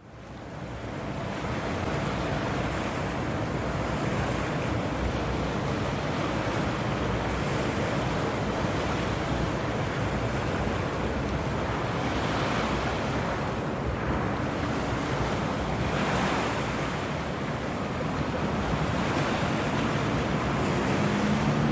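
Steady rushing of wind and water, with wind buffeting the microphone; it fades in over the first second or two. A faint low hum comes in near the end.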